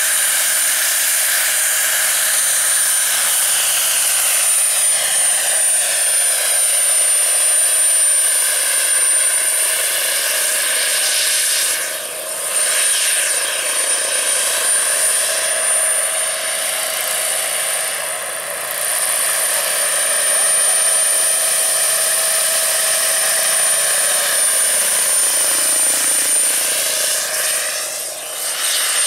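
Small model gas-turbine engine of a radio-controlled scale Bell 206B JetRanger III helicopter running under flight power: a steady high-pitched turbine whistle over the rush of the turning rotor blades. The loudness dips briefly three times as the model flies.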